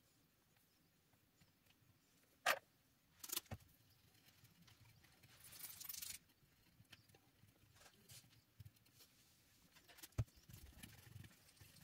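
Near silence, broken by a few sharp clicks and light metallic rattles of test leads and alligator clips being handled and clipped onto a circuit board, with a brief rustle around the middle.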